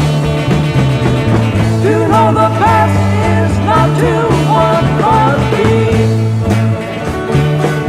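Late-1960s psychedelic rock band recording in an instrumental passage. A bass line steps between a few low notes under a lead line whose notes bend and slide between about two and five and a half seconds in.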